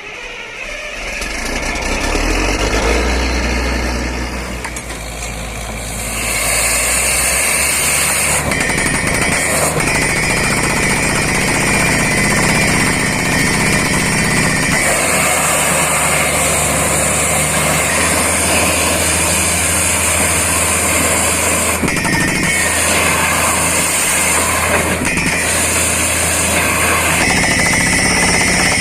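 Borewell drilling rig running with its air compressor, a steady mechanical din with a hiss of air, growing louder about six seconds in and then holding steady.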